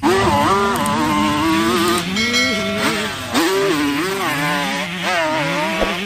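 Motocross dirt bike engine revving hard, its pitch climbing and dropping again and again as the bike accelerates over the sand.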